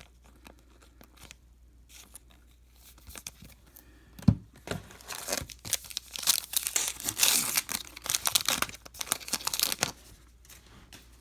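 A Topps Archives baseball card pack is torn open, its wrapper crinkling and tearing in a dense run from about five to ten seconds in. It is preceded by a single thump about four seconds in.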